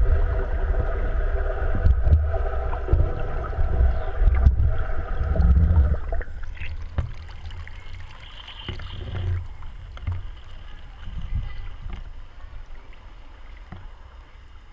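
Muffled low rumble and water noise picked up by a waterproof camera submerged in an aquarium tank. About six seconds in the camera comes up at the surface and the sound turns much quieter, with a few faint splashes.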